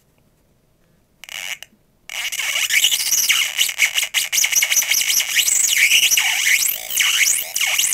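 Circuit-bent Sing-a-ma-jig singing toy's speaker putting out glitchy electronic squeals with repeated rising and falling pitch sweeps. The toy is being retriggered by a 555 timer with a photoresistor on its timing pin. A short blip comes about a second in, then continuous sound from about two seconds in.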